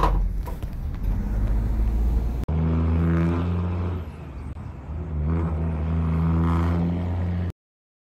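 Low rumble of a vehicle in motion heard from inside the cab. About two and a half seconds in, it changes abruptly to a heavy engine revving, easing off briefly in the middle and rising again, then cutting off suddenly near the end.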